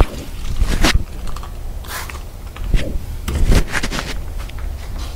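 Handling noises: scattered clicks, knocks and rustles as things are picked up and moved, with louder knocks about a second in and around three and a half seconds in, over a steady low hum.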